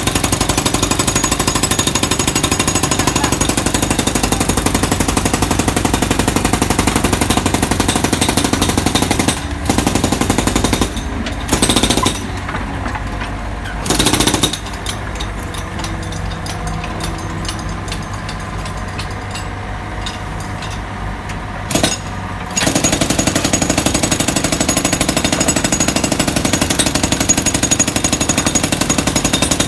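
Fast, steady jackhammer-style breaker hammering. It breaks off about nine seconds in and comes back briefly. Through the middle a machine engine runs on its own, and the hammering starts again about twenty-three seconds in.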